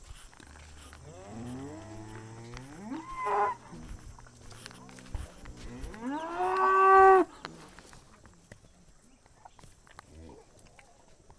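Cattle mooing: two long moos, each rising in pitch, the second one louder and held before it cuts off sharply, then a faint short call near the end.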